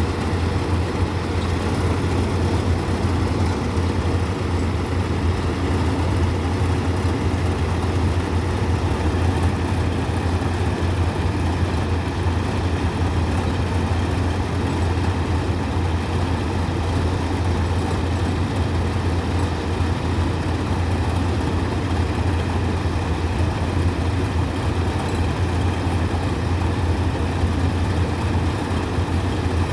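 Rice combine harvester running steadily: a constant low engine drone with machinery noise over it.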